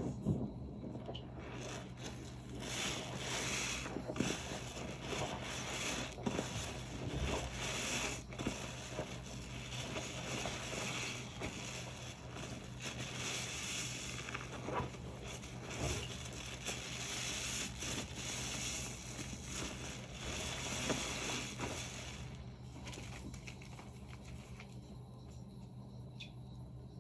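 Soapy dish sponge squeezed and worked in the hands, a dense wet crackling and squishing of suds, easing off about 22 seconds in.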